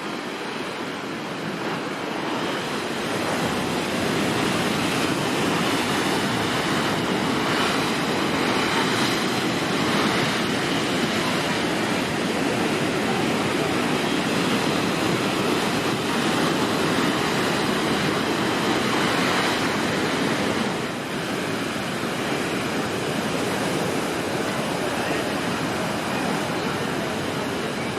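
Heavy storm surf crashing and rushing ashore in a continuous roar that swells a few seconds in and eases briefly about three-quarters of the way through, with some wind on the microphone.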